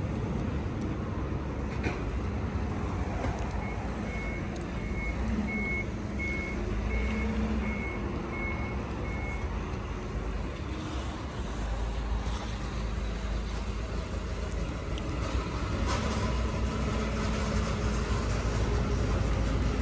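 Forklift engine running as it drives slowly with a load on its forks, with a warning beeper sounding a string of short, high, evenly spaced beeps for about six seconds in the middle.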